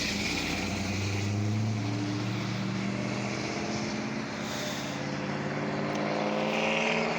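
Diesel locomotive engines droning as the train approaches, a steady low hum with overtones that slowly climbs in pitch toward the end.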